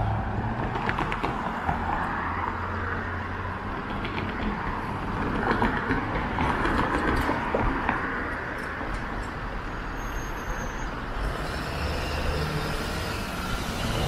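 City street traffic: motor vehicles running and passing, with a low engine hum that swells and fades over several seconds, mixed with the rush of strong wind.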